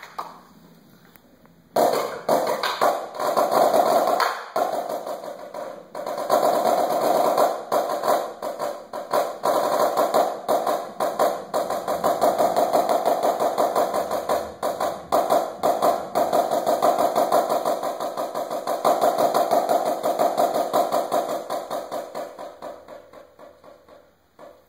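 Marching snare drum played solo with sticks. After a quiet second or two, fast loud stick patterns start, break off briefly twice, then run into a long dense stretch of rapid rolls and accents that fades away near the end.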